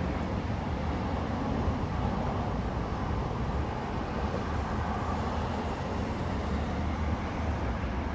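Steady road traffic noise, an even rumble and hiss of passing vehicles.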